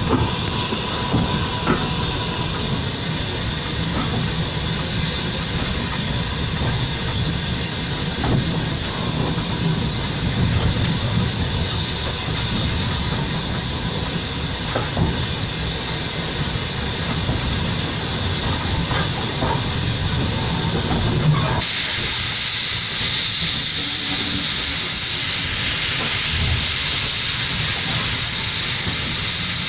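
Small steam tank locomotive on the move, heard from its front end: steady running noise with scattered clicks from the rails. About two-thirds of the way through, a loud steady hiss of steam starts suddenly and carries on.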